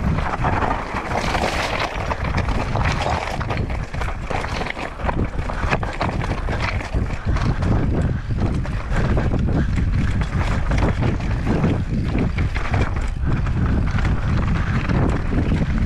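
Mountain bike riding down a loose, rocky trail: wind rushing over the microphone, with tyres crunching on gravel and many quick rattles and knocks from the bike.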